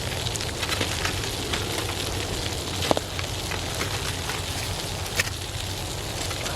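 Campfire crackling: a steady hiss with scattered small clicks and a couple of sharper pops.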